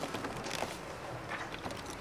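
Handheld camera being passed from hand to hand: faint rubbing and small knocks on its built-in microphone over low room noise, with a faint steady hum.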